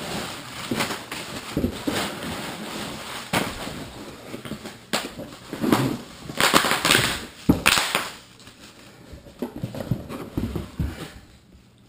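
Packing paper and bubble wrap rustling and crinkling as they are pulled out of a cardboard box, in uneven bursts with sharp crackles, loudest a little past halfway.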